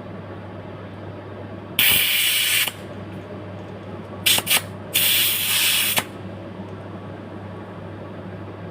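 Compressed air hissing in bursts from an air chuck at a bicycle tyre valve: a long burst about two seconds in, two short puffs around four seconds, then another burst of about a second. The tyre is not taking the air.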